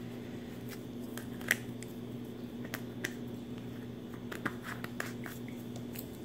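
Scattered small clicks and taps of hands handling a blue glass supplement bottle: pulling the cotton wad out of its neck and fitting the cap. The sharpest click comes about one and a half seconds in, with a run of lighter ones in the middle, over a steady low hum.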